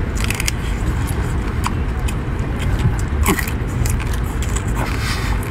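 A man biting into and chewing cooked crab, heard as a few short crunches and mouth smacks. Under them runs a steady low rumble of wind on the microphone.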